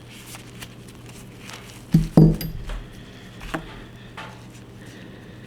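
Gun-cleaning gear being handled on a table while a pistol barrel is cleaned: light clicks and rustles, with two louder knocks of hard objects set down about two seconds in and a smaller knock a second and a half later.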